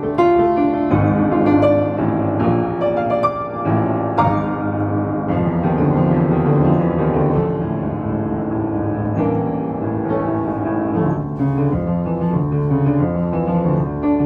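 Piano playing continuously, a steady flow of chords and melody notes.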